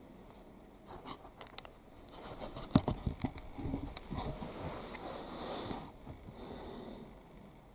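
Scratching and rustling handling noise with a run of sharp clicks and knocks, the loudest knock almost three seconds in; the rustling fades out about a second before the end.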